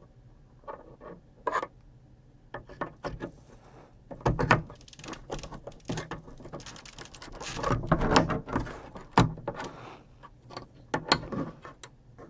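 Circuit-board modules and metal chassis parts of a vintage video editor being handled and pulled out during a teardown: irregular clicks, knocks and scrapes. They come in two busier clusters, about four seconds in and again around eight seconds in.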